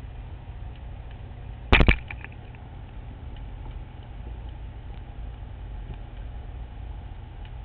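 Underwater recording in open water: a steady low rumble, broken a little under two seconds in by a quick cluster of three or four sharp clicks or knocks, the loudest thing heard, followed by a few faint scattered ticks.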